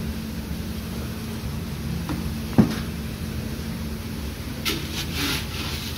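A single thump about two and a half seconds in, then brief rustling and scraping near the end as a jute sack of green coffee beans is opened and handled, over a steady low machine hum.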